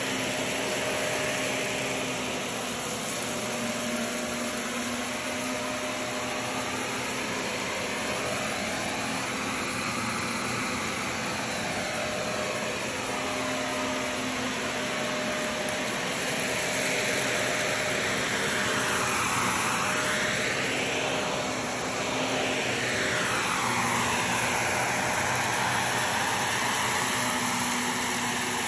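Shark upright bagless vacuum cleaner running as it is pushed over dirty carpet: a steady motor hum and rush of air whose tone sweeps up and down with each push and pull, a little louder in the second half.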